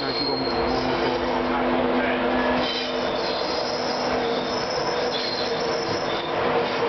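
Class 91 electric locomotive of an East Coast InterCity 225 set pulling out and passing close by, its steady running hum under a wash of wheel-on-rail noise, with thin high wheel squeals from the train on the curving track.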